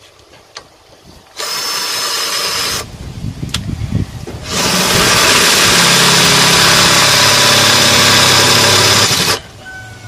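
Cordless drill drilling out a rivet that holds a washing machine motor's housing together. A short burst of drilling about a second and a half in, then, after a pause, a longer steady run of about five seconds that stops suddenly.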